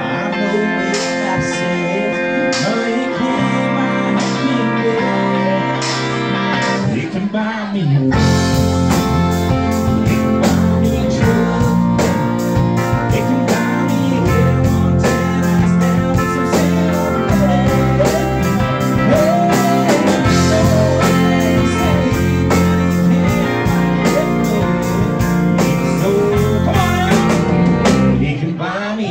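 Live country band playing with electric guitar and keyboard, starting lighter and then swelling to the full band with drums about eight seconds in; a male singer sings over it.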